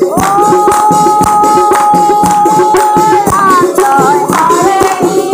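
Women's group singing an Assamese dihanam devotional chant. They hold one long note for about three seconds, then move into shorter melodic phrases, over steady rhythmic hand clapping.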